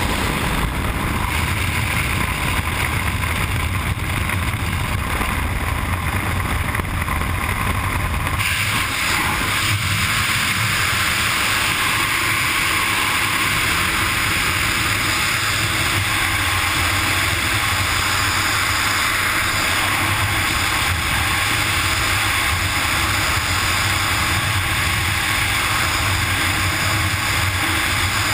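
Freefall wind rushing over a helmet camera's microphone during a wingsuit flight, a loud, steady rush. The hiss becomes brighter and stronger about eight seconds in.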